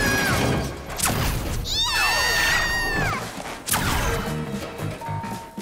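Cartoon sound effects over background music: a sharp crash about a second in, then gliding whooshes and a second sharp strike as a zapping energy-beam shot goes off near the end.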